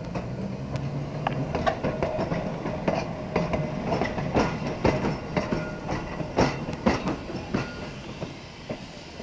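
Brill-built Chicago Surface Lines streetcar rolling past at close range, its wheels clacking over the rail joints. The sound is loudest about halfway through as the car goes by, then fades as it moves away.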